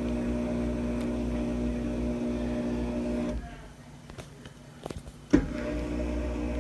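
Drain pump of a Samsung DW80R5060US dishwasher humming steadily during the diagnostic mode's drain test. About three and a half seconds in the hum cuts out, leaving a few faint clicks. It starts again with a sharp click a little past five seconds.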